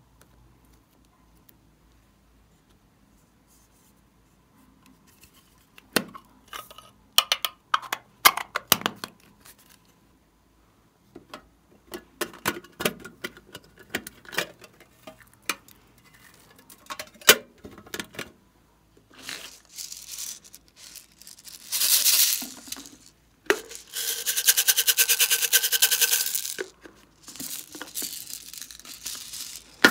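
Hands opening plastic slime packaging: crinkling and clicking plastic, a short hissing rip a little past two-thirds through, and a longer fast crackling tear a couple of seconds later.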